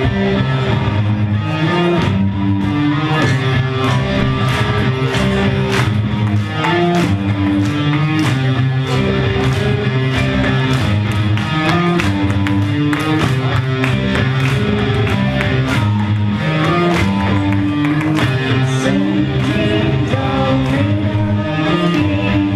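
A rock band playing live through a PA: electric guitars and bass over a steady drum beat.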